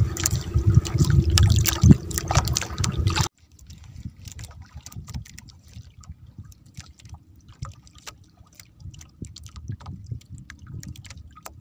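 Water splashing and sloshing for the first three seconds, then an abrupt cut to a faint low rumble with scattered clicks.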